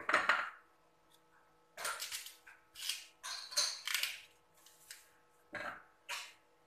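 A small knife paring the skin off a green mango in short, irregular scraping strokes, about six of them with pauses between.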